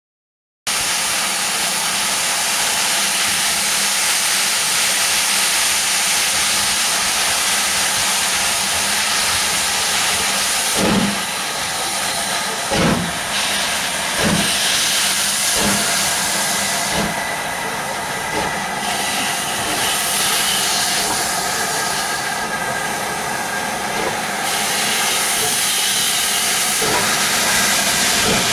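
LMS Class 5MT 'Black Five' steam locomotive hissing loudly, with steam blowing from its open cylinder drain cocks. A handful of slow exhaust chuffs come about a second and a half apart, roughly a third of the way in, as it starts to move.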